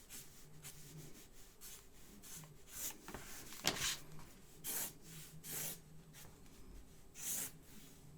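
Sharpie marker sketching on paper: a series of quick hissing line strokes, the strongest a little before the middle.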